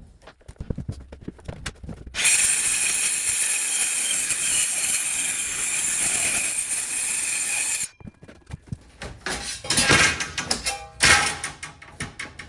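Cordless power saw running and cutting through a metal boat panel for about six seconds with a steady high whine, then stopping suddenly, followed by a series of clunks and knocks as the metal is handled.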